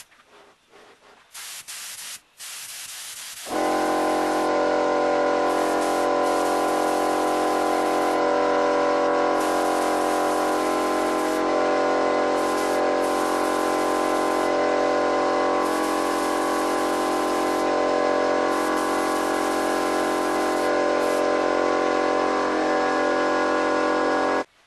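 Handheld paint spray gun spraying dark finish onto a wooden table base: a few short bursts, then a steady humming hiss that runs for about twenty seconds and cuts off suddenly near the end.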